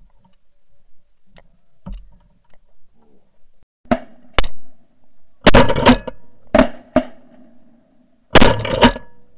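A series of shotgun shots in the second half, the two loudest about three seconds apart, each followed by a short rattle of further cracks.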